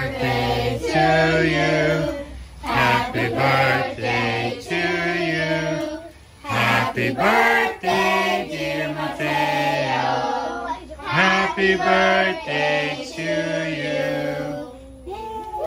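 A group of people singing a birthday song together, holding each note and stepping through the melody, with a short break about six seconds in.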